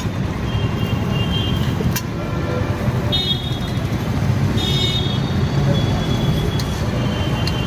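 Street traffic running steadily past, with vehicle horns tooting briefly several times.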